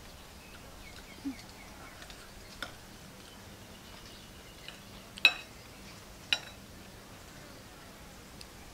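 Metal spoon clinking against a ceramic bowl while scooping food: three sharp clinks with a brief ring, the loudest a little past halfway.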